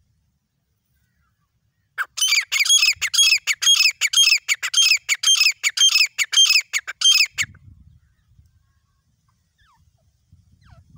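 Grey francolin calling: a loud, rapid run of short ringing notes, each dropping in pitch, about four a second. It starts about two seconds in and stops abruptly some five seconds later.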